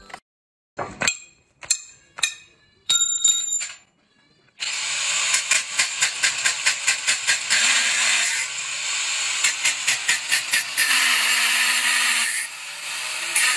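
A few sharp clicks and a short high tone, then, about four and a half seconds in, an angle grinder mounted in a cutting stand cutting metal: a loud high hiss that pulses rapidly at times.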